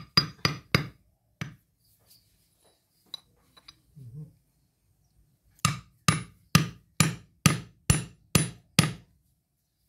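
Sharp metallic knocks while a tractor hydraulic gear pump housing is being worked on: a quick burst of four at the start, a single knock, then a steady run of eight, about two a second, each with a short bright ring.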